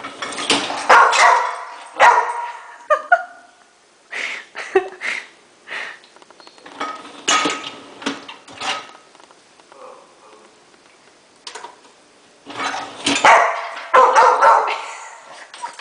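A Rottweiler barking in several loud bouts with short pauses, quieter for a couple of seconds in the middle.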